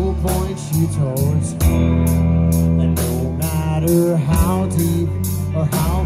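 Live rock band playing: electric bass, guitar and drums keeping a steady beat, with cymbal strokes about twice a second and a bending melody line on top.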